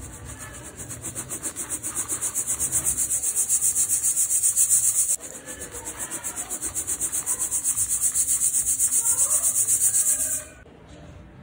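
Dry cement powder sifted through a fine wire-mesh strainer, shaken rapidly at several strokes a second so the powder hisses against the mesh. The shaking falls off sharply about five seconds in, picks up again, and stops near the end.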